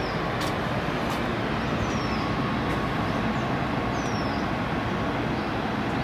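Steady rushing outdoor noise with a bird repeating a short, high, falling whistle about every two seconds.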